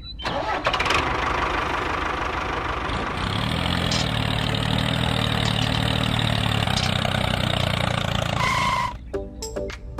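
Tractor engine starting and then running steadily, its even drone settling in about three seconds in. A short two-note high tone sounds near the end.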